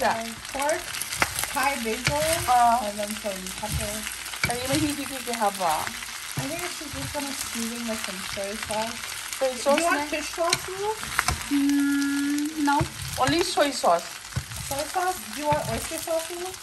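Rice noodles, ground pork and basil sizzling in a hot nonstick wok while a wooden spatula stirs and tosses them. Short wavering pitched sounds come and go over the sizzle, with a brief steady tone about three quarters of the way through.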